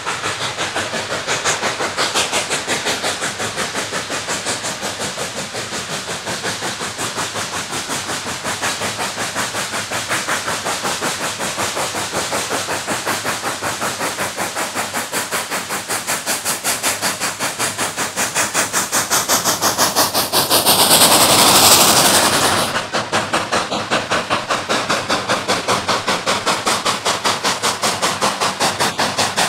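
K36 2-8-2 narrow-gauge steam locomotive working with its exhaust chuffing in a steady rhythm of about four beats a second, with a hiss of steam over it. About two-thirds of the way through, a louder swell with more hiss builds for a couple of seconds and cuts off abruptly, and the steady chuffing goes on.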